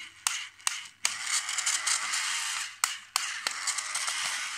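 Battery-powered toy drill whirring in short runs as it drives a plastic screw into a toy truck's chassis, stopping and starting with several sharp clicks between runs.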